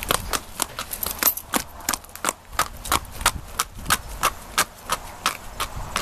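Horse's hooves striking a paved driveway as it is led on a lead rope: an even clip-clop of sharp hoofbeats, about three a second.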